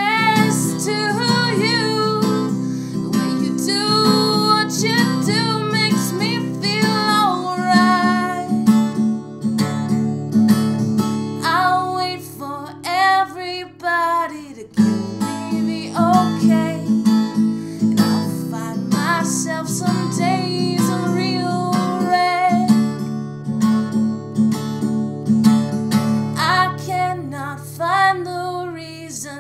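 A woman singing a song while strumming an acoustic guitar, the held chords changing every several seconds under her voice.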